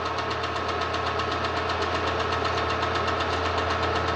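Film projector running: a steady motor hum with a fast, even clatter from the film advance.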